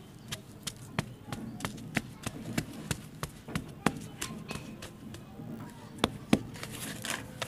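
Hand patting and pressing damp soil packed into a plastic mold: a quick run of sharp taps, about three a second, then a few sparser, louder pats a little after six seconds.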